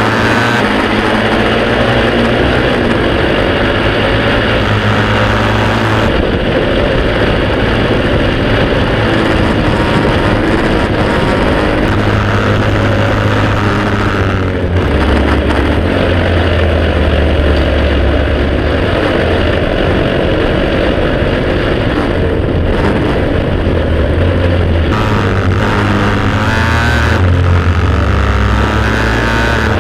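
Prewar Velocette KTT racing motorcycle's single-cylinder overhead-cam engine running hard, heard from a camera mounted on the bike, with wind rush. The engine note rises and drops in steps several times as the rider works through the gears.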